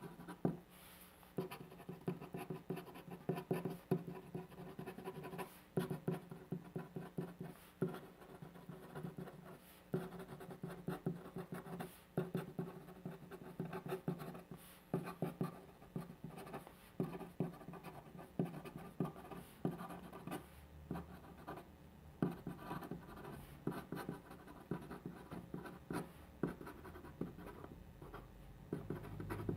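Pen writing on paper by hand: a continuous run of short, irregular scratches and light taps as the nib forms stroke after stroke of the characters.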